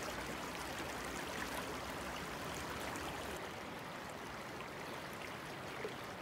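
Shallow, rocky mountain stream flowing over stones, a steady sound of running water.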